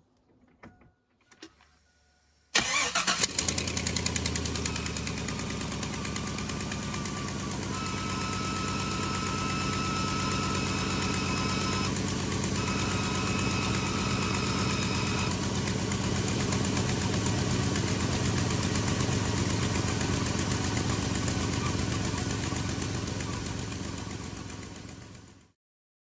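Chevy Silverado's 6.0 L Vortec V8 cranked and catching quickly about two and a half seconds in, then idling steadily. A thin high whistle joins for several seconds midway. The sound fades away near the end.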